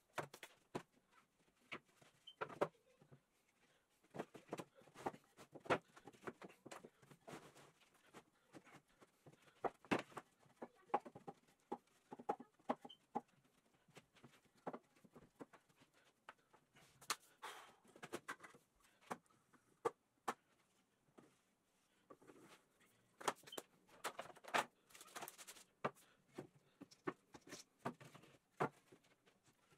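Scattered light clicks, taps and knocks at irregular intervals, with a denser cluster about two thirds of the way through.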